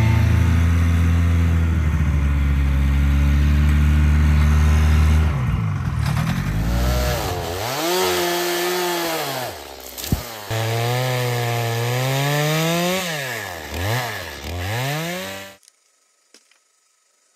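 A Buran snowmobile engine running steadily, then a chainsaw cutting into a tree trunk, its pitch swinging up and down over and over as it revs and bogs under the load. It cuts off suddenly near the end, leaving near silence with a faint click or two.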